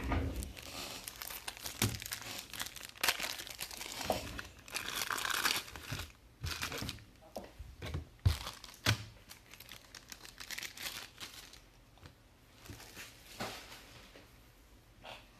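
Plastic wrapping on trading-card boxes and packs being torn and crinkled open, with scattered clicks and knocks. The crinkling is densest in the first half, and a sharp knock a little after eight seconds is the loudest sound.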